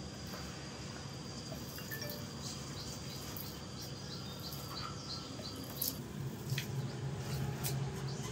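Quiet background ambience with a thin, high chirping repeated about three times a second. The chirping stops about six seconds in, and a few sharp clicks follow.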